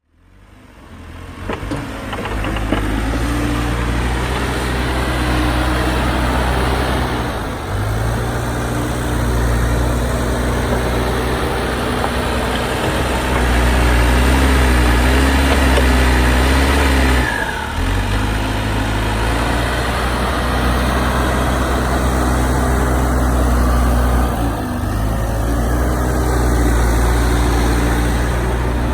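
Tractor diesel engine running steadily, working a solid manure spreader, with a strong low hum. It fades in over the first two seconds and its level dips briefly three times.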